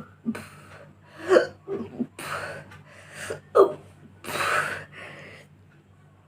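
A woman's uneasy breathing and gasps, broken by short, sharp hiccups, the clearest about a second and a half and three and a half seconds in, from a stomach full of fizzy cola.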